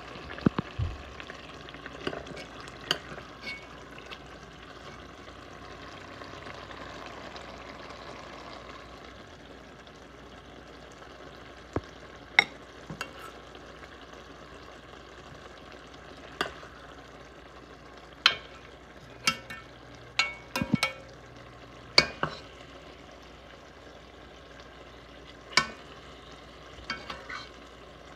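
A wooden spoon scooping thick tomato beef sauce out of an enamelled pot onto a plate of rice, with scattered sharp knocks of the spoon against the pot and plate over a faint steady hiss.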